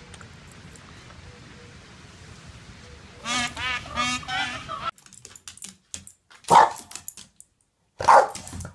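Faint steady outdoor noise, then two loud warbling animal calls about three seconds in. After a cut, a few light taps and then a Boston terrier barking twice, short sharp barks a second and a half apart.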